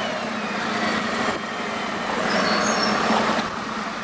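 Steady engine hum and road noise of a sightseeing bus driving along a city street with traffic around it. A few faint high squeaks come about two and a half seconds in.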